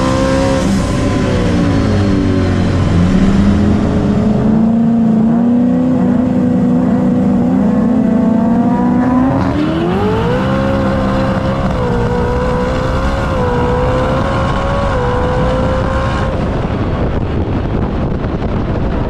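Twin-turbo Ford Coyote V8 in a race-built F-150 truck. The revs fall and hold low and steady, then climb at about nine seconds and are held steady and high for several seconds before easing near the end.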